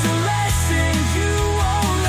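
Instrumental passage of a grunge-style rock song: distorted guitar and a heavy bass line over drums.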